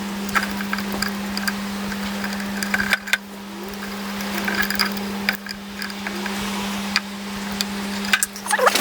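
A steady low hum with scattered light clicks and taps, like small parts and tools being handled.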